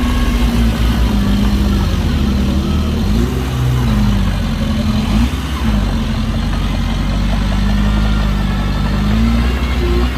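Heavy diesel engine of earthmoving machinery running under work, its speed rising and falling several times.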